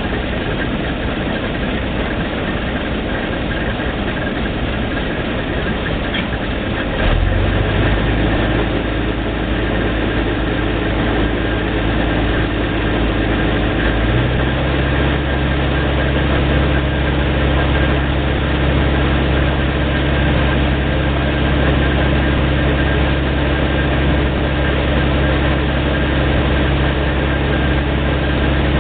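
Failing 1250 drilling rig running with a steady engine drone. About seven seconds in, a deeper steady hum comes in and the sound gets louder. About halfway through, its pitch steps to a new note and then holds steady.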